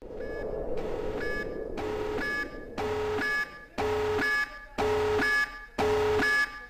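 Electronic alarm sound effect: a buzzing alarm tone pulsing on and off about once a second.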